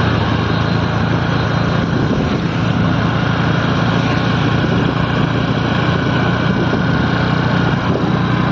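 Motor scooter's engine running steadily while riding, with rushing wind and road noise over it.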